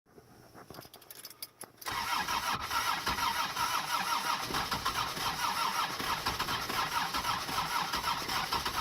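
Starter motor cranking a Mercedes OM617 five-cylinder diesel with an even beat, beginning about two seconds in after a few faint clicks; the engine does not catch, a no-start after new injector nozzles were fitted.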